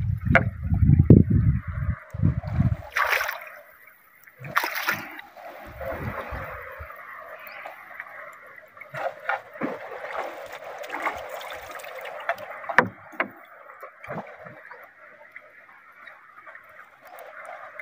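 Water lapping and sloshing against the hull of a small outrigger boat, with a few short knocks and splashes along the way. A low rumble fills the first couple of seconds.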